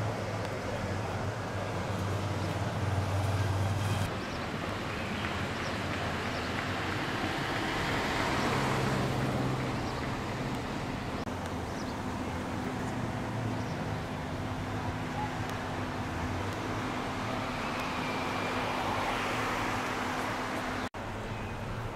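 Outdoor car-park background noise of motor vehicles running and moving about: a steady traffic rumble with a low engine hum, broken briefly near the end.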